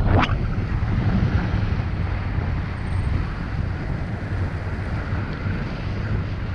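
Wind from the flight's airflow buffeting the camera microphone: a steady low rumble, with a couple of brief knocks right at the start.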